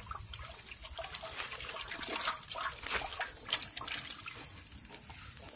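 Water splashing and sloshing in a metal pot as hands work a live fish in it, the splashing busiest between about one and a half and four seconds in.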